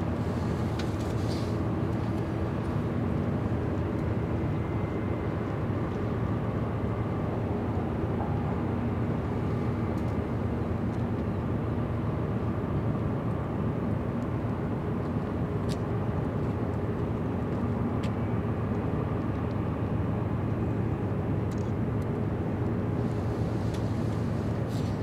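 Steady low drone of ship diesel engines: a constant rumbling hum with a few faint ticks.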